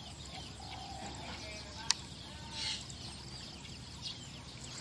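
Quiet outdoor ambience with faint bird calls. There is one sharp click a little under two seconds in and a short hissing swell soon after.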